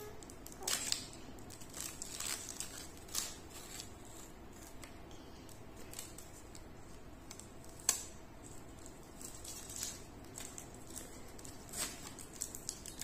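Clear tape being peeled off a painted canvas and handled: scattered sharp crackles and clicks over a soft rustle.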